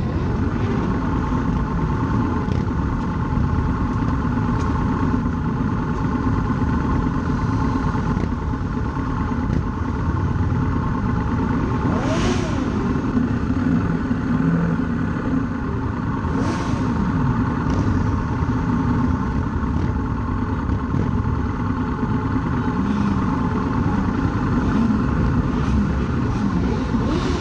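Motorcycle engines in a slow-moving group ride: the camera bike's engine running steadily at low speed, with other motorcycles around it revving up and down a few times.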